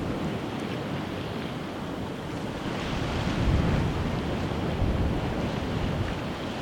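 Sea waves washing on a rocky shore, with wind buffeting the microphone; the surge swells louder about three and a half seconds in.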